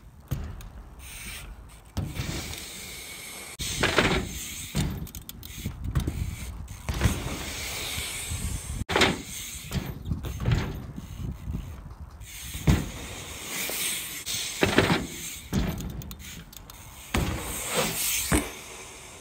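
BMX bike on skatepark ramps: tyres rolling over the surface and a series of knocks and clatters as the bike stalls on top of the ramp and drops back in. There is a louder rush near the end as the bike passes close by.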